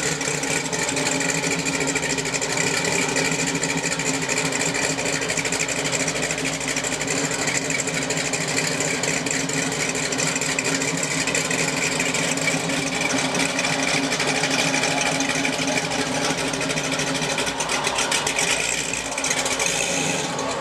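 Custom car's engine idling steadily and evenly, with a rapid machine-like beat.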